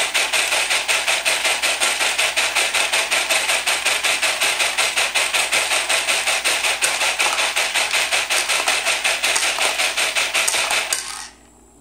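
A 3D-printed screw counting machine running: its motor-driven plastic disc turns and loose steel screws rattle and knock on it in a rapid, even rhythm. The rattling stops abruptly about a second before the end.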